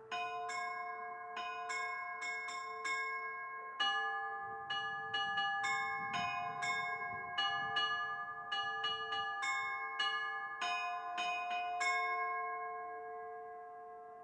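Several Orthodox church bells of different pitches struck one after another in an uneven pattern, about two strikes a second. The strikes stop near the end and the bells ring away. A faint steady siren tone sits underneath: an air-raid siren over the town.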